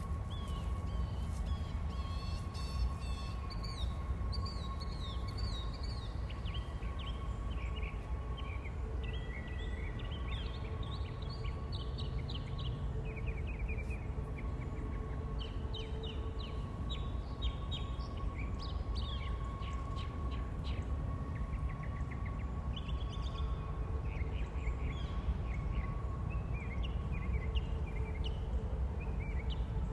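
Several wild birds chirping and singing in short trills and repeated notes over a steady low rumble, with a faint steady hum underneath.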